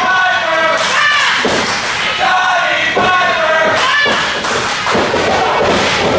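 Small crowd shouting and yelling, with a few thuds of wrestlers' bodies hitting the ring canvas, one near the end.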